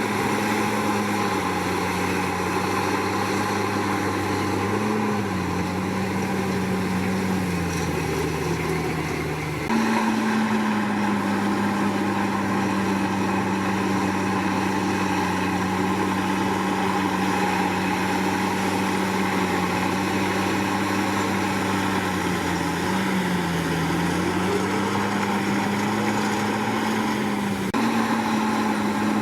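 Komatsu D61PX bulldozer's diesel engine running steadily while working, its pitch dipping and recovering slightly a few times under load. The sound jumps abruptly twice, about ten seconds in and near the end.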